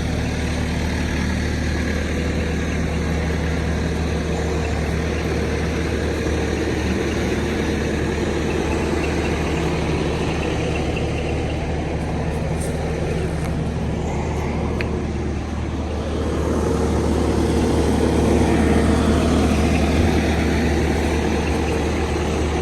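Steady engine hum and road noise of a vehicle driving, heard from inside the cab. It grows a little louder for a few seconds past the middle.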